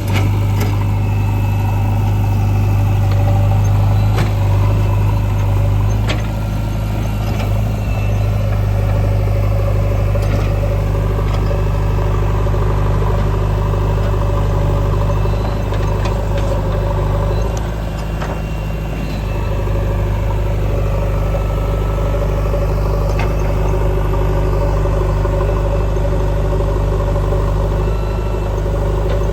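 Diesel engine of a JCB 3DX backhoe loader running steadily at work, with a few sharp knocks from the bucket and loader scattered through.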